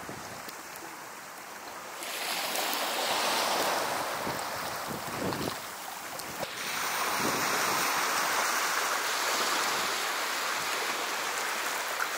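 Steady rushing of wind and small sea waves, getting louder about two seconds in.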